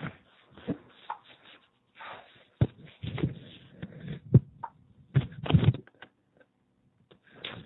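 Irregular rustling and thumping handling noises, with a few sharp knocks in the middle, on a low-quality recording.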